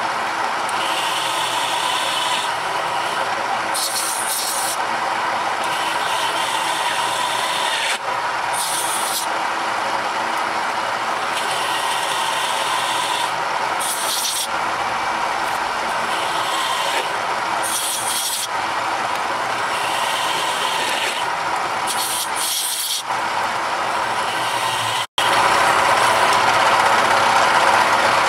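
Hole saw in a large drill press cutting slowly through 1-inch-thick steel flat bar: a steady grinding machine noise, broken every few seconds by short hisses of compressed air blowing the fine chips out of the cut. Near the end the sound drops out for an instant and comes back louder.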